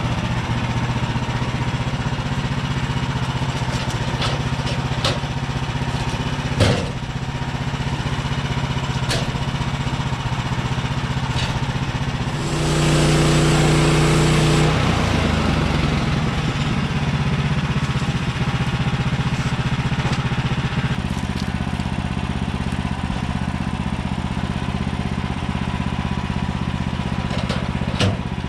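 Gasoline engine of a portable band sawmill running steadily. It runs louder and higher for about two seconds near the middle, and a few short sharp knocks are heard.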